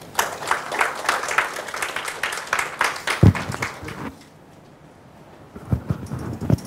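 Audience applause: a dense patter of hand claps lasting about four seconds, then stopping. A few low thumps come near the end.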